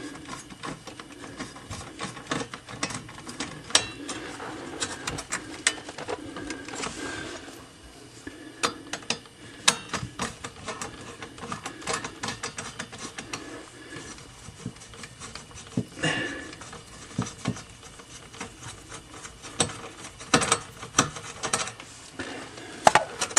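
Irregular clicks, taps and scraping of hands and tools working a refrigerator's defrost heater loose to pull it out. The heater is slow to come free.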